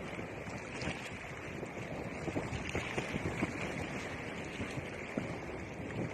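Steady sea noise of waves washing in, with wind rumbling on the microphone and a few soft splashes.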